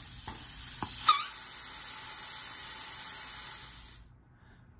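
Compressed air hissing from a hand-held blow gun into the direct clutch feed hole of a Dodge 48RE transmission pump, applying the direct clutch piston for a clutch pack clearance check. A sharp click about a second in, and the hiss cuts off after about four seconds.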